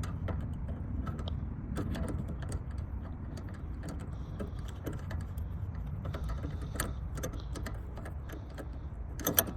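Garden hose's threaded coupling being unscrewed by hand from a pressure washer's water inlet: scattered small metallic clicks and rattles, with a sharper clatter near the end, over a steady low rumble.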